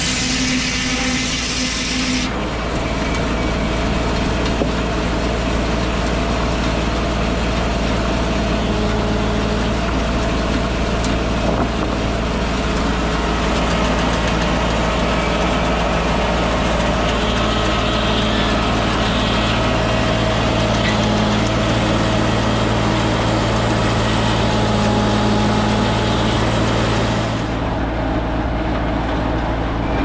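Tractor engine running steadily as it drives a PTO sawmill. A saw cut ends about two seconds in, and the higher hiss of the mill drops away near the end.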